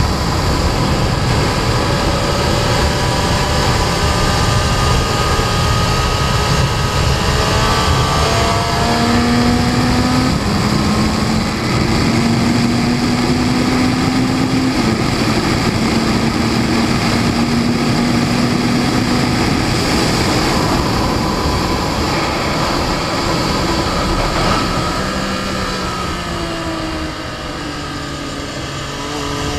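Sport motorcycle engine running hard at speed under heavy wind rush, its note climbing in pitch and holding steady for long stretches, then the level falls away near the end as the bike slows.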